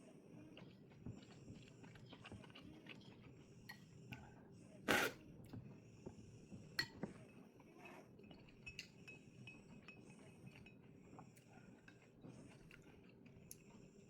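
Cutlery clinking against a plate during a meal: scattered light clicks, with one louder knock about five seconds in.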